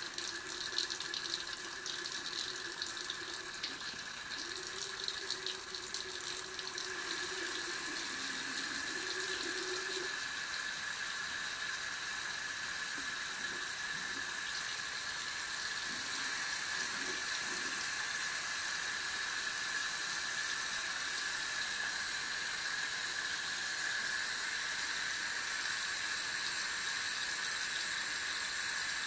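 Bathroom faucet running water into the sink, a steady splashing hiss, opened wider so the tankless water heater will fire; the flow sounds a little stronger from about seven seconds in. A faint wavering tone sounds under it for the first ten seconds or so.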